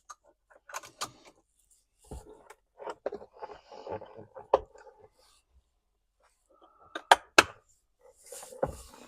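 Clicks, knocks and rustling of hands working loose plastic dashboard and glove-box trim, with two sharp clicks about seven seconds in.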